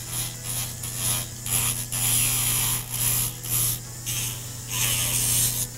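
Small handheld rotary grinder running with a steady hum, grinding bulk off the sides of a pheasant's wing bone. The high grinding hiss comes and goes in repeated short passes as the bit touches the bone, with a longer pass near the end.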